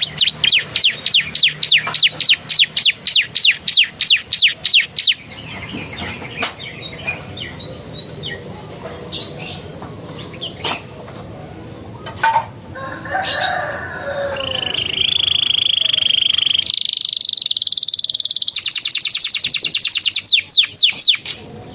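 Domestic canary singing a song filled with ciblek and prenjak (prinia) phrases: a fast run of repeated down-slurred notes for about five seconds, scattered short calls, a held steady note, then another rapid trill near the end.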